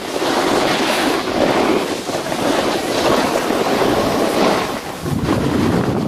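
Snowboard sliding and scraping over packed piste snow as the rider carves turns, the noise swelling and easing with each turn, mixed with wind buffeting the camera's microphone.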